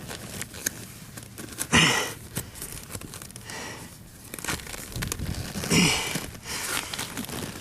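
Leather seat-cover material rustling and crinkling as it is pulled and tucked under the seat against Velcro. Two short grunts of effort come about two seconds and about six seconds in.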